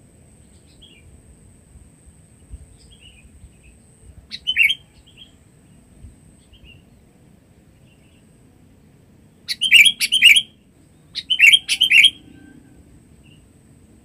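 Sooty-headed bulbul (kutilang) calling: one loud call a few seconds in, then two quick runs of three or four loud notes in the second half, with faint chirps between.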